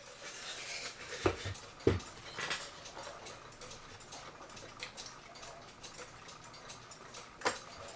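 Small clicks and a few sharper knocks of hands working at the hand nut and hands on a cuckoo clock's dial. The nut is stuck tight. The louder knocks come about one and two seconds in, and again near the end.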